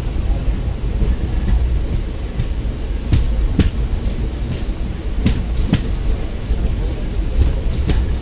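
Express passenger train running at speed, heard from an open coach door: a steady low rumble with wind, and sharp wheel clacks over the track every second or two, several coming in quick pairs.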